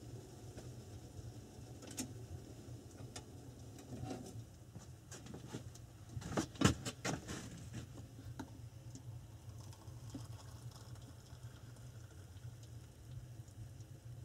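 Steel kettle and metal mug clinking as they are handled, the loudest run of clinks a little past the middle. Then tea is poured from the kettle into the mug, with light ticks over a steady low hum.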